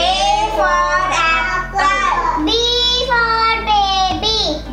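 A young girl singing out the letters and picture words of an alphabet chart in a high child's voice, in short phrases with long held notes.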